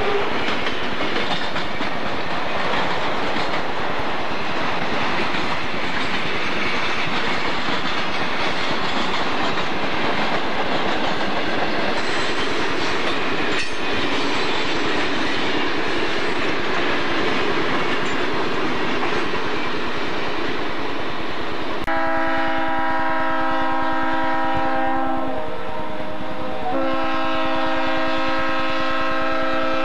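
Freight cars rolling past, with steady wheel-on-rail noise and clickety-clack. About 22 seconds in this gives way to a diesel locomotive's multi-note air horn sounding one long blast, then a second long blast after a short pause.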